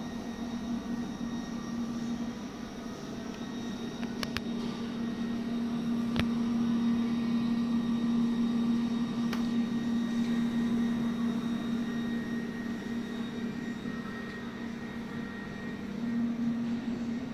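Steady machine hum of a TIG seam welding setup running, with a few sharp clicks about four, six and nine seconds in.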